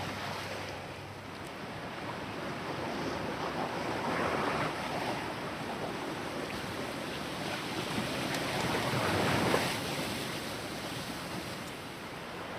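Ocean waves washing onto the shore, a steady rush that swells twice, about four seconds in and again near nine seconds.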